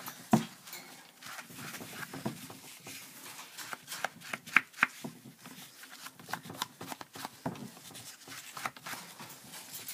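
Irregular light taps and rubbing from a wooden-handled foam ink applicator being dabbed on a distress ink pad and worked along the edges of cardstock, with paper handled in between.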